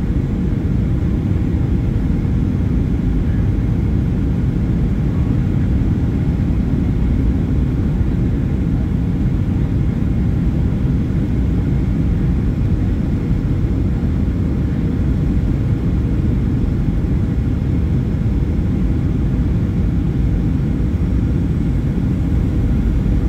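Jet airliner cabin noise: the underwing turbofan engine and rushing air give a steady low rumble, with a faint steady hum running through it.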